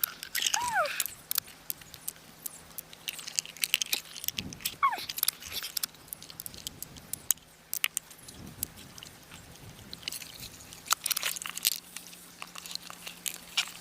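Irregular sharp clicks, taps and light rattles of small hard objects being handled, with two brief squeaks, one near the start and one about five seconds in.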